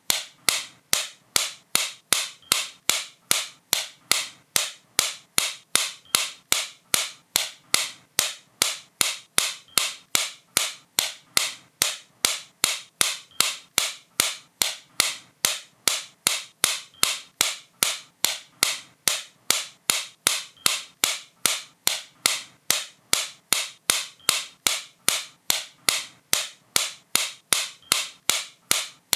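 A sharp, crisp click repeated at a steady rate of about three a second, each click high-pitched and short.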